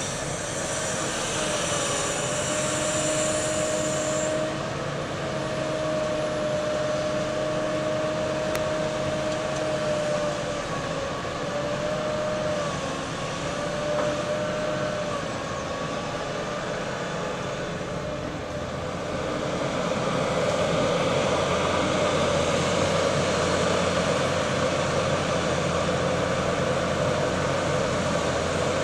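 Heavy construction machinery running steadily, with a wavering whine through the first half; the engine noise grows louder about two-thirds of the way in.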